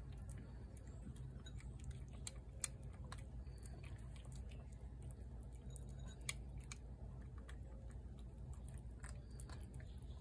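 A feral tabby cat chewing and licking up wet food from a plate: faint, irregular small wet clicks, over a steady low rumble in the background.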